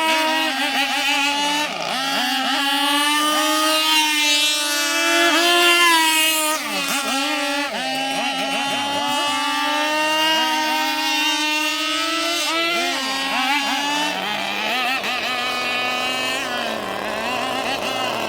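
Small two-stroke engine of a radio-controlled boat running at high revs, its pitch repeatedly dipping and rising as the throttle is worked. After about 14 seconds the clear engine note gives way to a rougher, noisier drone.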